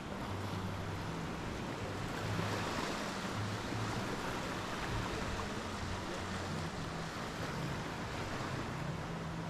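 Surf washing onto a sandy beach, a steady rush that swells about two to three seconds in, with a faint low hum coming and going underneath.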